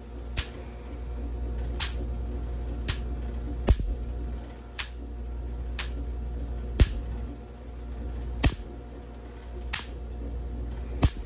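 Electric sparks snapping from a Van de Graaff generator's dome to the ball of a discharge wand: about ten sharp cracks at uneven spacing, roughly one a second, over a steady low hum.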